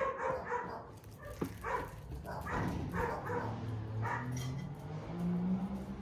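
A dog barking in short calls, several times over, with a low hum underneath from about halfway in.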